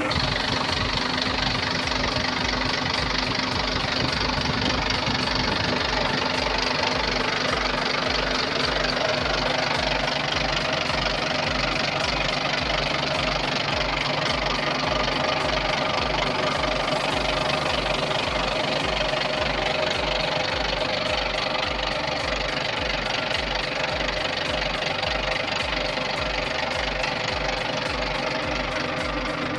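Volvo Penta TWD121 six-cylinder turbocharged diesel engine running steadily at idle, with an even low pulsing.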